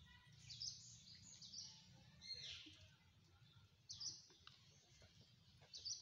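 Ringneck parakeet giving short, shrill calls, about five of them a second or two apart, faint over a low background rumble.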